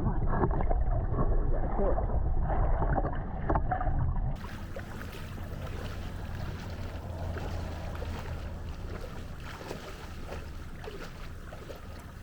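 Water sloshing and wind buffeting the microphone on a kayak out on the river. About four seconds in the sound changes abruptly to a quieter, steady bed of water noise with a low hum.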